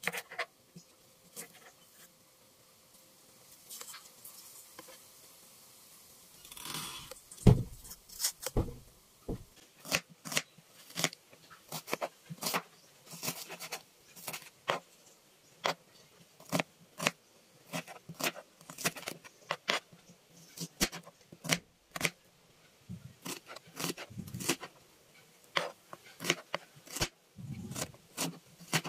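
Kitchen knife cutting red onion on a chopping board: the blade knocks sharply on the board, one to two strokes a second. A few faint cuts and scrapes come first, and the steady chopping starts about seven seconds in.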